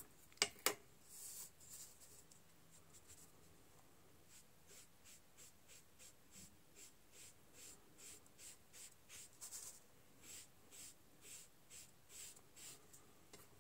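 Faint, even, scratchy strokes of a sponge applicator loaded with soft pan pastel, rubbed in the pastel pan and then swept across cardstock, about two or three strokes a second, with a couple of light taps near the start.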